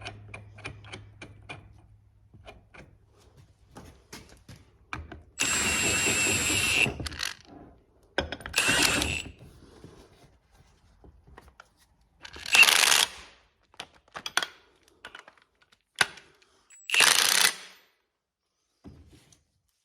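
Power tool run in four short bursts, the first about a second and a half long with a whine in it and the later ones shorter, with small clicks and taps of metal parts between them.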